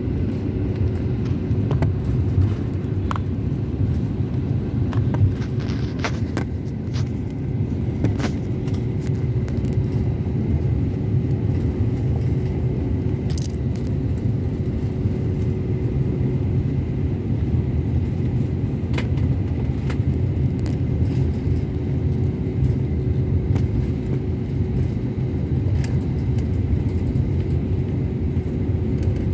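Airliner cabin noise while taxiing: a steady low rumble from the engines and the aircraft rolling on the taxiway, with a constant hum over it and occasional light clicks and rattles from the cabin.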